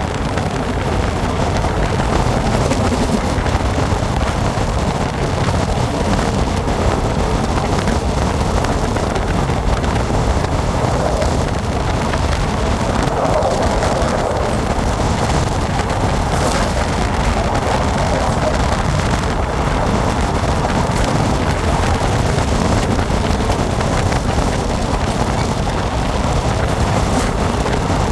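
Running noise of a moving passenger train heard from an open carriage window, with wind blowing over the microphone: a steady rumble and rush that does not let up.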